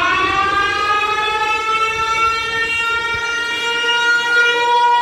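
Emergency siren sounding for a mock evacuation drill, its pitch still rising as it winds up and then settling into a steady, loud wail.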